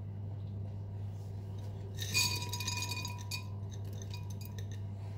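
A small glass bowl clinks against the clear blender jug about two seconds in and rings briefly, with a patter of seeds tipped into the jug. A steady low hum runs underneath.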